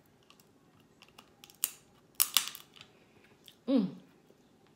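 Crab leg shell cracking and snapping as it is bitten and pulled apart by hand: a few sharp crackles, the loudest about two seconds in. A short vocal sound follows near the end.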